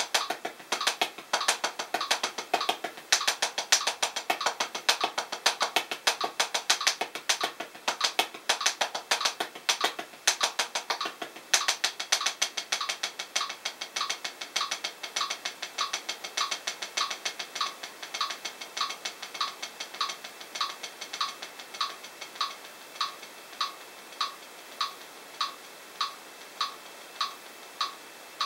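Hickory 7A drumsticks playing fast sixteenth-note single paradiddles at 100 bpm on a P4 practice pad, over a metronome click. About twelve seconds in the strokes thin out and stop, leaving the click alone at about five every three seconds.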